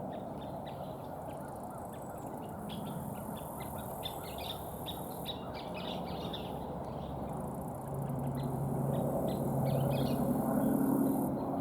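Scissor-tailed flycatchers giving rapid, sharp chattering call notes, an alarm reaction to a nearby American kestrel. A low steady hum runs underneath and grows louder in the later part.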